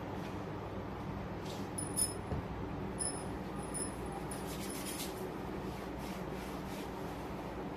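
Soft cloth rustling with a few light, high clinks between about two and five seconds in, over a steady low room noise.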